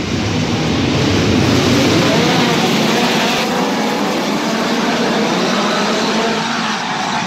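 A pack of midget race cars running together on an indoor dirt track, their engines making a steady, loud din that echoes around the enclosed arena.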